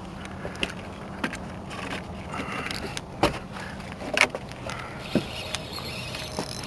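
A few sharp knocks and clicks as a long trolling rod is lifted out of its holder and worked against a hooked crappie, the loudest about three and four seconds in. Under them runs the steady low hum of the boat's motor at trolling speed.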